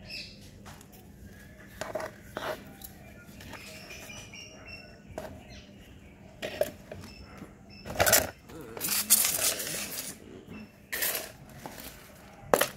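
Potting mix being scooped with a small trowel and pressed around a plant in a plastic pot: irregular scraping, rustling and dull knocks, loudest about eight to ten seconds in, with a sharp knock near the end.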